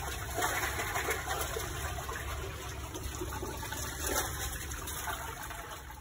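Rushing, splashing water noise with a low rumble underneath, fading out near the end.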